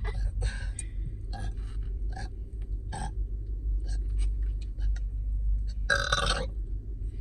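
A woman lets out a burp about six seconds in, brought up by drinking carbonated berry Fanta. Small clicks and mouth sounds come before it, over a steady low hum.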